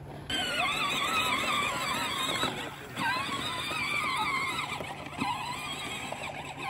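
Background music with a wavering lead melody, starting abruptly about a third of a second in.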